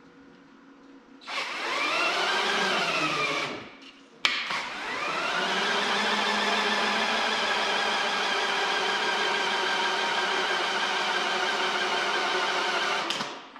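Rebuilt Oliver 1855 over/under three-speed powershift transmission spun on the bench by a motor drive, making a mechanical whine as its pump builds lube pressure. The first run rises, then falls in pitch and stops. It starts again with a click about four seconds in and runs at a steady pitch until shortly before the end.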